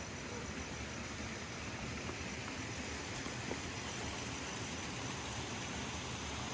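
Steady rushing hiss of outdoor garden ambience, with no distinct events standing out.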